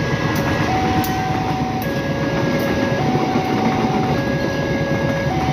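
A railroad crossing alarm sounds from its loudspeaker, two tones taking turns high then low, each held about a second. Under it runs the rumble of a passenger train passing over the crossing.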